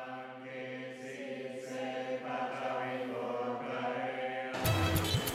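Buddhist devotional chanting: low voices holding a steady near-monotone pitch, with a few soft hissed consonants and a shift in pitch about halfway. Near the end it cuts off abruptly into louder music with sharp beats.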